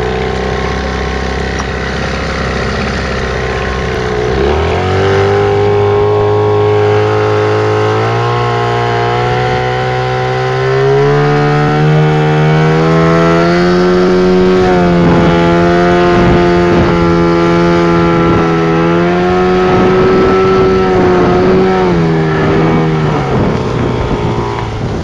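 Johnson 15 hp outboard motor running under way. The throttle opens about four seconds in and the revs climb steadily for several seconds, then hold. The engine eases off a couple of seconds before the end.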